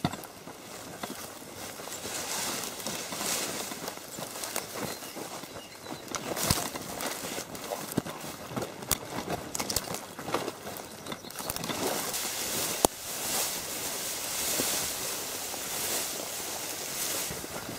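A bicycle ridden over a bumpy, overgrown dirt trail: the bike rattles and clicks over the rough ground while grass and leaves swish against it.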